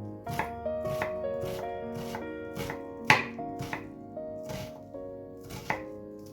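Knife chopping on a cutting board, irregular strokes about two a second with the sharpest one about three seconds in, over soft background piano music.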